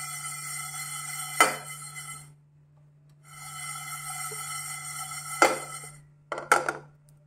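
Dry mustard, fenugreek and peppercorn seeds rattling and sliding across a hot non-stick pan as it is shaken while dry roasting, in two rasping stretches of two to three seconds each. The pan gives a few sharp knocks: one about a second and a half in, one about five and a half seconds in, and a quick double knock near the end.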